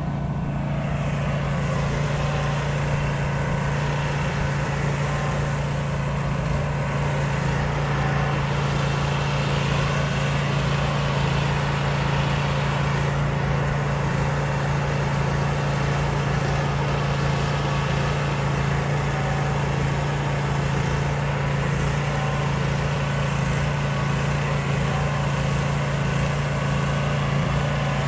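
Gas engine of a pressure washer running steadily at an even speed, under the hiss of a low-pressure water spray from the wand striking a dome.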